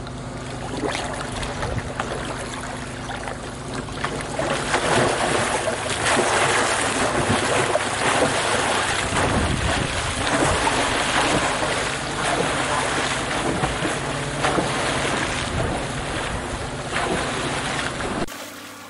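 Splashing and sloshing water from a long, slicey freestyle kayak doing repeated cartwheels, its bow and stern driving down into the water with paddle strokes. The splashing grows louder about four seconds in and stays dense through the middle.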